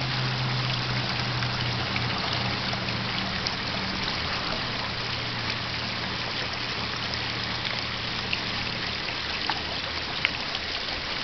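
Steady trickling and splashing of water from a koi pond's water feature, with a faint low hum underneath that weakens after the first couple of seconds.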